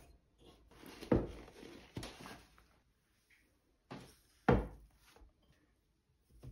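Hands handling sourdough bagel dough in a glazed ceramic bowl: a few dull thumps, the loudest about a second in and again past the middle, with soft rubbing between.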